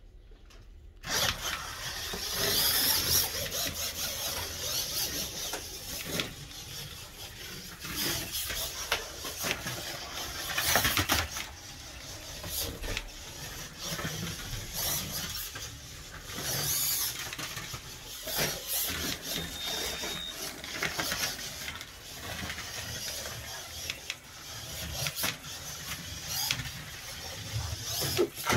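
Small electric motor and gears of a Ford F100 rally-raid truck slot car whining as it runs on a sand-coated slot track, with gritty scraping and clatter from the tyres and body on the rough surface. It starts about a second in and rises and falls as the car speeds up and slows.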